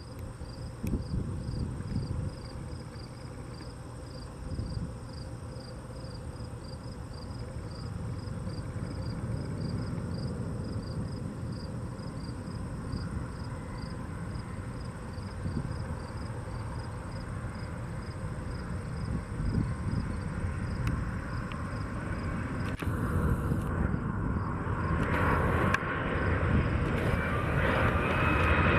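Boeing 757-200 jet engines on final approach, a low rumble growing steadily louder and turning into a loud rushing jet roar over the last few seconds as the airliner comes close. Crickets chirp steadily in the background, about one and a half chirps a second.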